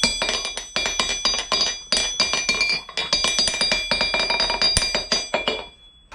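Steel anvil face struck by a hammer in quick runs of bouncing blows, each hit ringing with a high, bell-like tone, as in a rebound test. The blows come in several runs that fade out near the end.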